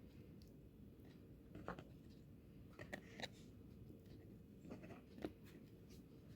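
Near silence: a low steady hum with a handful of faint, short clicks and taps.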